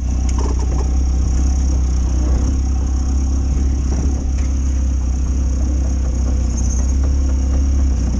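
Off-road vehicle's engine running steadily at low revs close by, a loud, even, low rumble.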